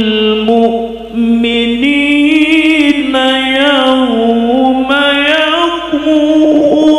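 A male qari reciting the Quran (tilawah) in long, ornamented melodic phrases, his voice rising and falling in drawn-out melismas and amplified through a handheld microphone.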